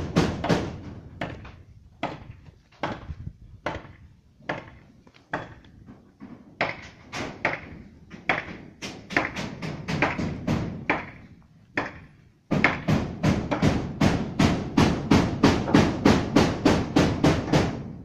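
Repeated hammer blows, in short irregular runs with pauses, then a steady run of about three blows a second over the last five seconds or so.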